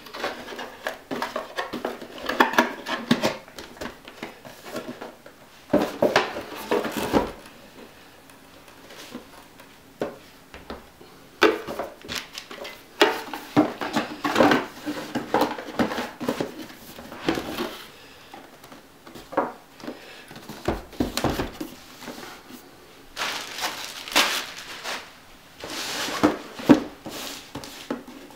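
Cardboard packaging being handled on a cloth-covered table: irregular knocks, taps and rustles as cables and a power supply are packed into their box and boxes are moved. Near the end, scraping as a knife slits the tape on a cardboard shipping box.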